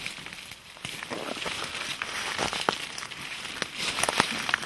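Footsteps crunching through dry fallen leaves and twigs, several people walking close together, with many sharp crackles; the crunching gets denser about a second in.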